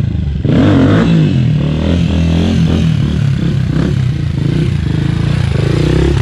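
Honda CRF dirt bike's single-cylinder four-stroke engine revving up and down as the rider holds a wheelie close by. It gets louder about half a second in as the bike comes near.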